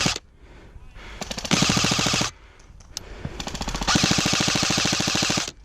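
Airsoft electric gun firing on full auto in rapid, evenly spaced bursts: a brief one at the start, a short burst about a second and a half in, and a longer burst of about a second and a half near the end.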